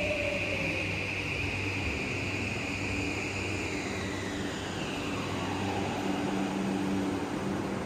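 Toei 5500 series subway train braking to a stop at the platform: its motor whine falls in pitch over the first few seconds, then a steady low hum as the train stands.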